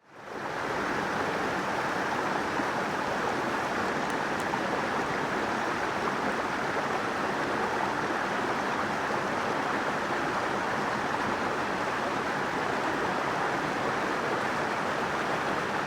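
Steady rain falling on a tarp: an even, unbroken hiss that fades in at the very start.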